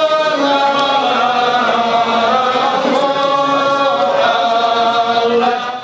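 A congregation chanting dhikr together, the voices holding long notes that slide from pitch to pitch. The chant dips in loudness briefly right at the end.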